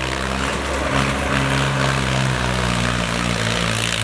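Swaraj 855 tractor's three-cylinder diesel engine running hard during a rear-wheel wheelie stunt, its revs shifting up and down several times.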